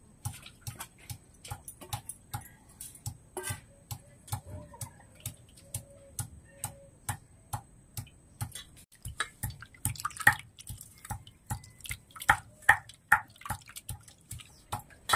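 A stone pestle knocks steadily on a flat grinding stone, about three strokes a second, crushing ginger and garlic into paste; the strokes get louder from about ten seconds in. Under them, water sloshes as small snails are washed by hand in a steel bowl.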